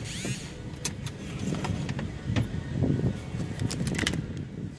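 Handling noise from a phone carried by hand while walking: a low rumble with several short, sharp clicks and knocks scattered through.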